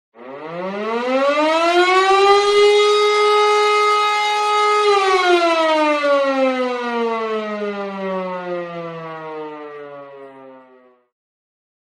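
Air-raid siren winding up: one loud wail rises in pitch over about two seconds and holds a steady tone. After about five seconds it winds down slowly, falling in pitch and fading until it stops near the end.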